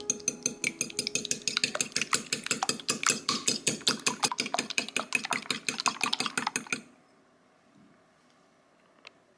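A metal fork beating raw eggs in a glass bowl, its tines clinking rapidly against the glass at several strokes a second, stopping about seven seconds in.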